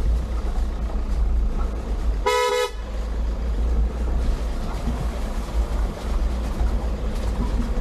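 A vehicle horn gives one short toot about two seconds in, over the steady low rumble of a vehicle driving.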